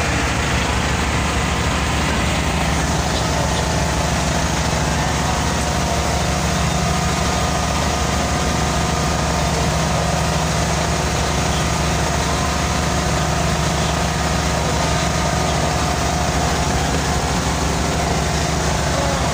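Passenger boat's engine running steadily, heard from inside the passenger cabin: a loud, even drone that holds unchanged throughout.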